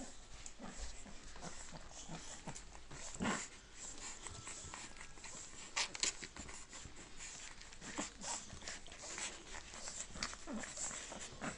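Eighteen-day-old boxer puppies nursing at their mother: a run of small wet suckling clicks and smacks with brief whimpers, the loudest about three seconds in and around six seconds.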